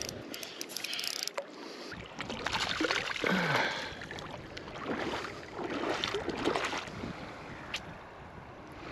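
Irregular splashing in shallow sea water, in a few bursts a second or two long: a small hooked trevally thrashing as it is drawn in and grabbed by hand.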